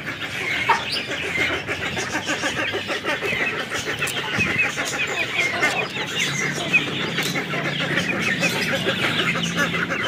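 Domestic hens clucking over a steady, dense chatter of many short high chirps from other birds.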